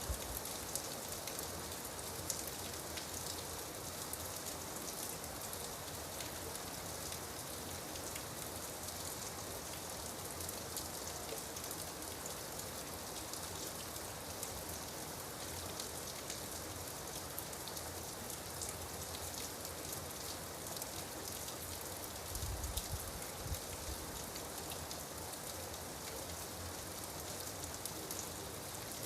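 Steady rain falling, with many small drop ticks. A brief low rumble comes about 22 seconds in.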